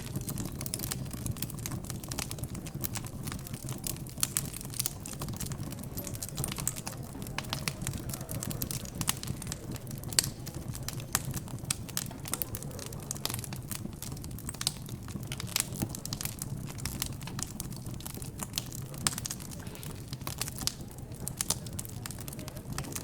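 Wood fire in a fireplace crackling: irregular sharp pops and snaps, some louder than others, over a low murmur of background chatter.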